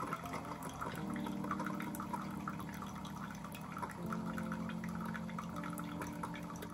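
Single-serve pod coffee maker dispensing a thin stream of coffee into a glass mug, trickling and dripping as the mug fills, over soft background music with held chords.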